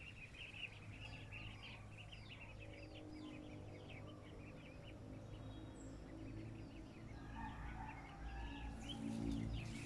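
Birds chirping: many short, high, downward-sliding chirps in quick succession, thick in the first half and thinning out later, over a low steady rumble.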